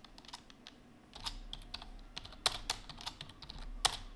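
Typing on a computer keyboard: irregular keystroke clicks, sparse at first and coming faster after about a second, with a few louder clacks in the second half.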